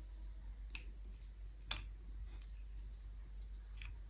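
A few sharp, faint clicks a second or two apart as the stitch-length setting of a Jack F5 industrial sewing machine is changed to 1.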